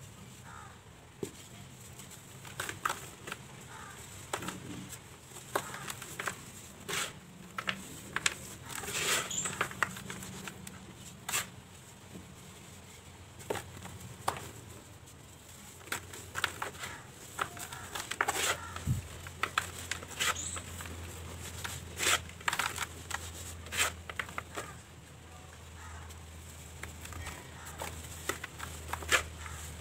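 Dry cement balls crushed and crumbled by hand, the powder and grit pouring through the fingers: irregular crisp crunches and crackles over a soft gritty trickle.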